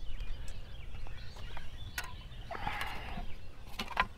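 Handling noise: scattered light clicks and knocks, the loudest about four seconds in as a plastic fish measuring board is picked up, with a brief rasping burst about two and a half seconds in.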